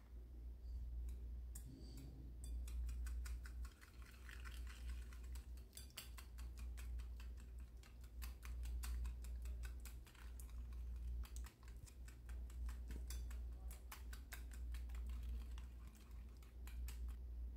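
Wire whisk beating eggs and sugar in a ceramic bowl: a quick, uneven ticking of the wires against the bowl, starting about two seconds in, over a steady low hum.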